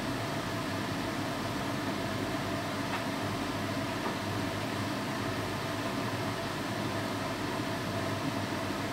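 Steady fan-like whooshing with a faint hum, unchanging throughout.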